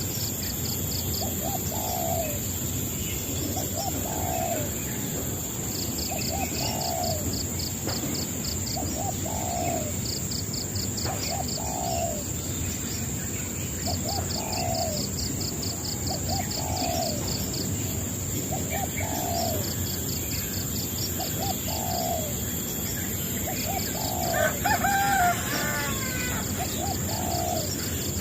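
Bird calls: a short, low, falling call repeated about every two seconds, with spells of rapid high-pitched pulsed chirping and a louder call near the end, over a steady hiss.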